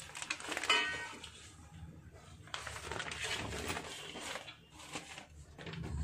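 A short high squeal about a second in, then newspaper rustling and crackling as a sheet is unfolded over an aluminium biryani pot to seal it.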